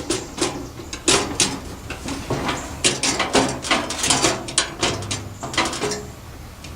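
Metal fuel tank of a Coleman 414 white-gas camp stove knocking, clicking and scraping against the stove's sheet-metal case as it is pushed and worked into place, with many sharp clicks. The tank will not seat, which the owner puts down to misaligned parts.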